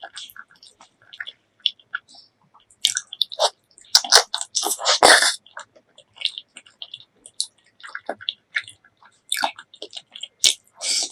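Close-up eating sounds of spicy pork leg curry and rice: wet, sticky chewing and lip smacks, irregular and uneven, with a louder run of bites and chewing about four to five seconds in.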